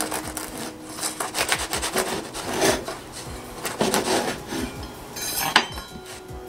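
Serrated bread knife sawing back and forth through the crackly, crisp crust of a pain de campagne on a wooden cutting board, in several scratchy strokes. A single sharp knock near the end.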